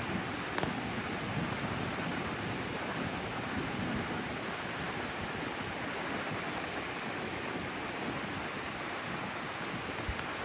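Rough, typhoon-driven ocean surf breaking on the beach, a steady, even rush of noise with no let-up.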